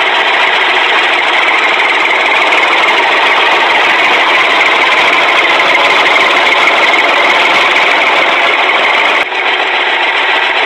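Dumper truck engine running steadily, a dense, loud rumble with no music over it; the sound dips briefly and changes about nine seconds in.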